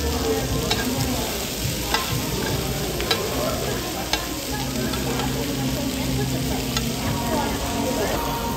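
Beef intestines (gopchang) and vegetables sizzling on a cast-iron tabletop grill plate while metal tongs stir and turn them. The tongs click sharply against the pan about four times in the first half.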